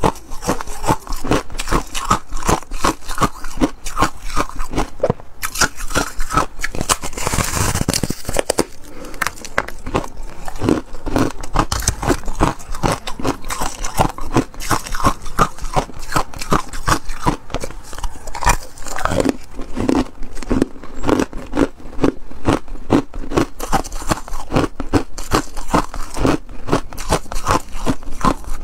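Thin ice and frozen foam ice crunching and crackling as it is bitten, broken and chewed: a dense run of sharp cracks, with a louder crunching stretch about seven seconds in.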